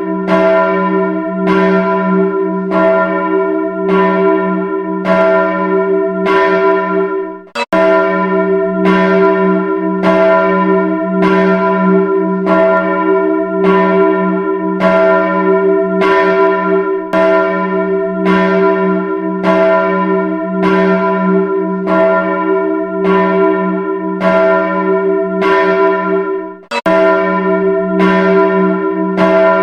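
A single church bell struck about once a second at the same pitch, each stroke ringing on into the next. The ringing cuts out suddenly twice, about 8 and 27 seconds in, and resumes at once.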